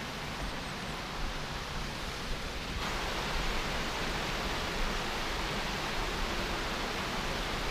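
A rocky stream rushing over stone slabs and small cascades: a steady rush that grows louder and brighter about three seconds in, with a low rumble underneath.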